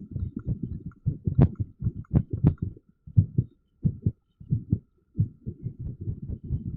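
Irregular heartbeat sounds: uneven low thumps in quick succession, broken by several short gaps in the second half.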